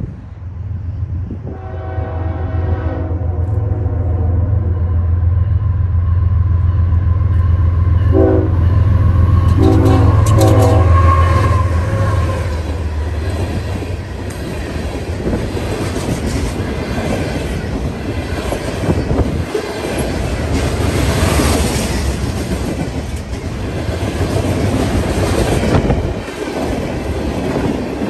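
Freight train passing close by: the diesel locomotives rumble past while the horn sounds one long blast about two seconds in, then a few short blasts around eight to eleven seconds in. After that come the steady rolling and clatter of the freight cars' steel wheels on the rails.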